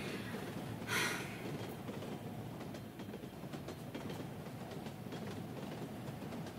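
Train carriage rolling along the rails: a steady rumble of wheels and running gear, with a brief hiss about a second in.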